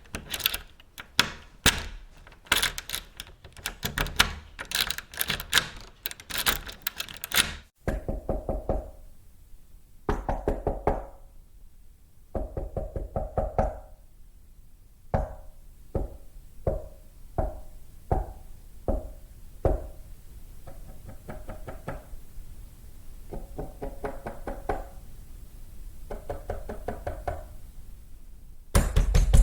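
A key rattling and clicking in a door lock, then knocking on a door. The knocks come in short bursts of raps and in single strikes spaced a little over half a second apart.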